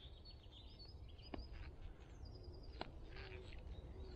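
Faint knife cuts into a wooden tent peg being notched: two sharp clicks about a second and a half apart, with a few softer scrapes. Birds chirp in the background.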